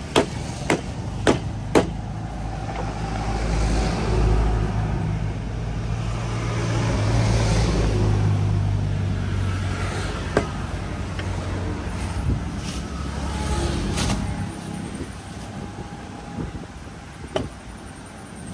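A motor vehicle's engine hum that swells through the middle and fades away, the loudest sound here. At the start, four sharp knocks of a mallet driving a knife through a fish on a wooden chopping block, and a few single knocks later as the fish is cut.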